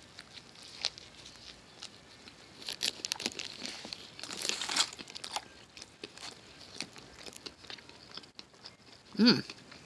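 Someone chewing a mouthful of McDonald's classic fried chicken sandwich close to the microphone, with scattered small clicks and rustles, then a short hummed 'mm' near the end.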